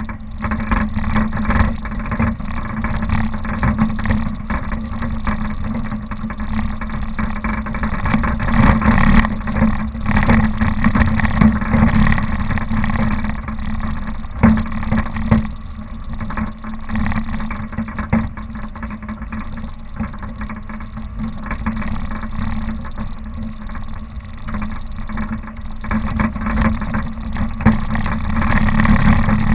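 Suzuki Vitara's engine running as it drives off-road: a steady drone over an uneven low rumble, with occasional knocks from the rough ground.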